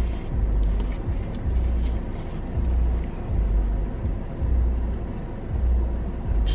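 Low car rumble heard inside the cabin, swelling and fading about once a second.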